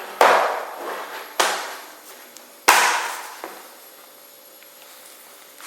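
Three sharp metallic clacks from a metal Steelbook DVD/Blu-ray case being handled and opened, each ringing out briefly. The last and loudest comes nearly three seconds in.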